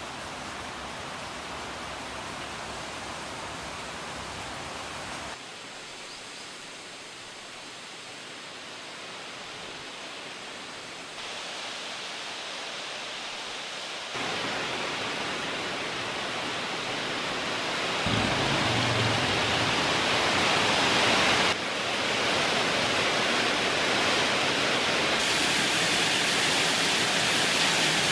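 Rain: a steady hiss that changes abruptly every few seconds as recordings are cut together, growing louder in steps until it becomes a heavy downpour in the second half.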